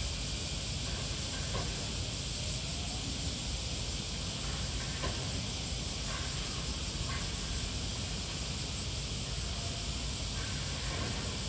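Steady construction-site background noise: an even hiss over a low rumble, with a few faint short clinks.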